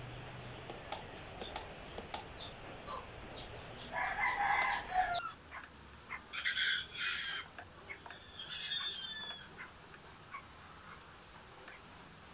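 Chickens calling: a rooster crows about four seconds in, followed by shorter, higher calls a couple of seconds later and a brief falling call near the middle.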